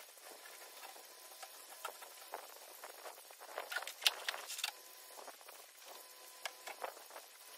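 Faint, irregular crackling and pattering of snow slumping and melting into the running water of a snow-melting gutter, with a small cluster of crackles about four seconds in.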